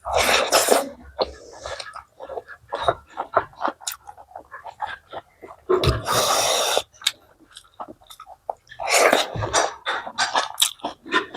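Close-miked chewing and mouth smacking of a meal of chicken and rice: many short wet clicks. There are three longer, louder hissing noises near the start, just past halfway and near the end.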